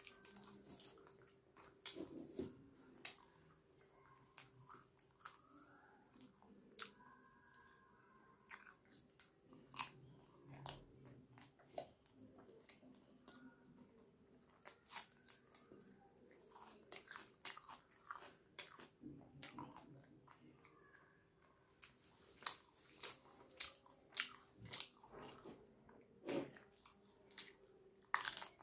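A person eating with hands close to the microphone: naan torn and chewed with butter chicken, and crunchy bites of raw onion, heard as irregular crunches, bites and mouth clicks.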